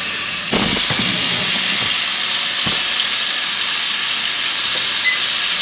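Boneless chicken thighs sizzling steadily as they fry in hot oil in a pot, with a couple of sharp knocks in the first three seconds.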